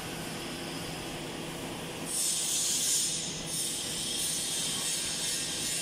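CNC router running its automatic tool-length measurement, with the Z axis slowly lowering the spindle toward the tool setter. The steady machine noise is joined by a louder steady hiss about two seconds in.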